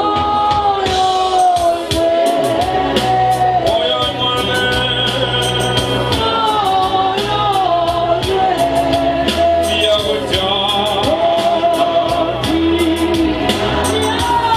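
Congregation singing a slow gospel worship song, with a steady bass line and a regular percussion beat.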